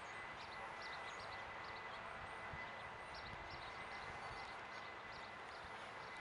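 Faint outdoor background: a steady, even hiss with scattered short, high chirps and a thin, steady high tone. No siren is sounding yet.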